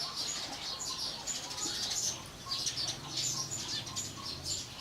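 Small birds chirping: a dense run of quick, high, overlapping chirps.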